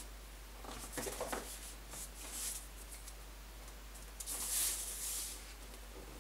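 Cardboard tablet box being handled and turned over in the hands: light rustles and knocks about a second in and again near two seconds, then a longer scrape of card rubbing or sliding about four and a half seconds in. A steady low hum lies underneath.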